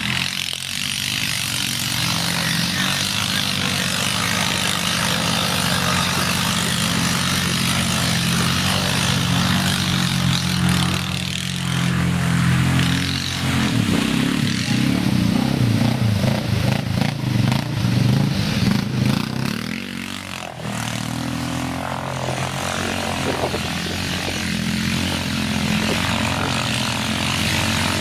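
ATV engines running under load through a deep mud pit. The engine note surges and wavers around the middle as the quad works through the mud, then breaks off suddenly near the two-thirds mark, and a second quad's engine runs more steadily.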